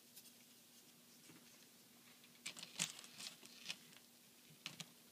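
Faint clicks and light rustling of plastic figure parts being handled: a cluster of small clicks about halfway through and two more near the end, over a low steady hum.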